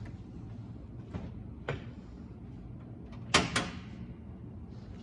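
Two light clicks, then two sharp knocks close together about three and a half seconds in, each with a short ring.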